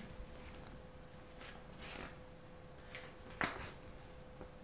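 Faint paper handling: a few soft rustles and light taps as a barcode sticker is peeled and pressed onto a paper swab envelope, over a faint steady hum.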